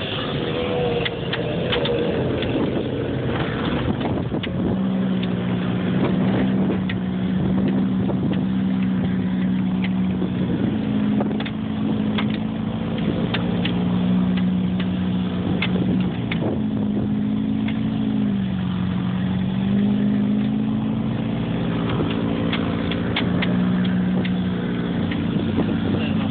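Engine drone of a vehicle driving over sand dunes, heard from inside its cab, holding a steady pitch, with a brief drop and rise in revs about eighteen seconds in. Scattered clicks and knocks sound over the drone.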